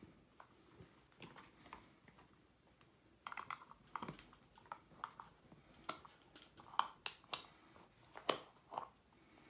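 Soft silicone lens hood being handled and pressed onto a telephoto lens: faint scattered rubbing and small clicks, busier from about three seconds in, with several sharper clicks in the second half.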